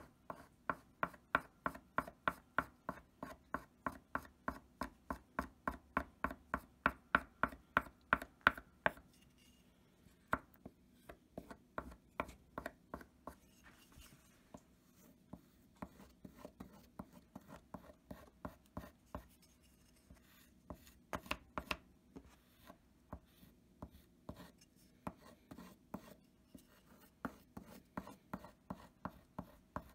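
A handheld sharpening block rubbed in quick back-and-forth strokes along a small steel knife blade: an even scraping rhythm of about three strokes a second. About nine seconds in the strokes turn softer and irregular, thin out through the middle, and pick up again near the end.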